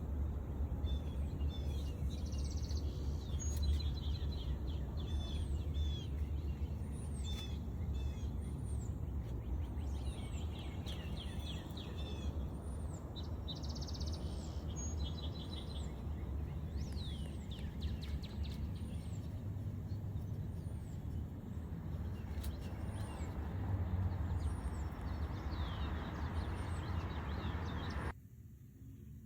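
Several birds chirping outdoors: one repeats a high, arched chirp about once a second while others call in short trills, over a steady low rumble. Near the end the background drops away suddenly.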